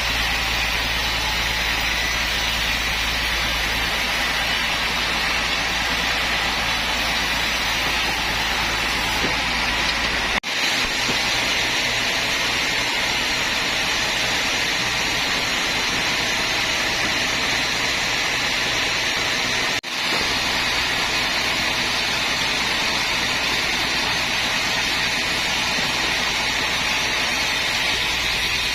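Sawmill machinery running steadily with a low hum under a constant whirring noise, cutting out for an instant twice, about ten and twenty seconds in.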